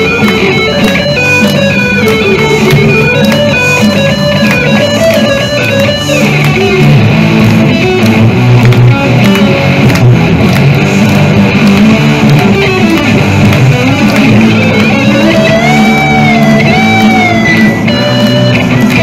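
Two electric guitars playing rock live through small amps. For the first six seconds a quick, stepping lead melody runs over the chords. After that comes dense chord playing, and a wavering, bent lead line follows near the end.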